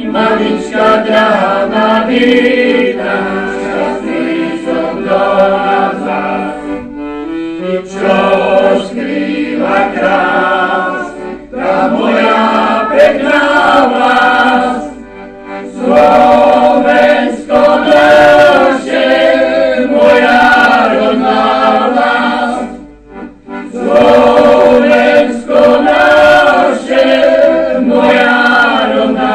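Background music: a choir singing a song in phrases, with short breaks between the phrases.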